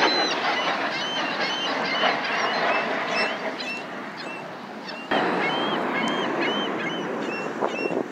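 Steady rushing roar of a jet aircraft flying overhead, with birds giving short rise-and-fall calls several times a second. The roar steps up suddenly about five seconds in.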